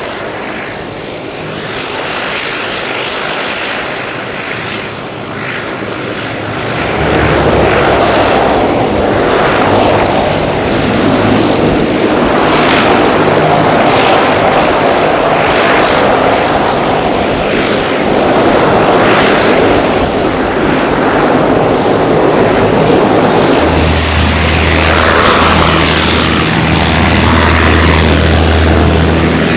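Propeller airplane's engines running, growing louder about seven seconds in and staying loud, with a deeper low rumble joining near the end.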